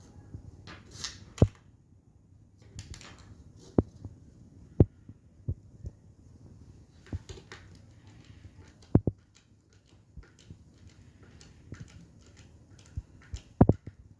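Parts of a homemade PCP air rifle being handled and fitted together by hand: scattered sharp knocks and clicks, two of them quick doubles, with light rustling between.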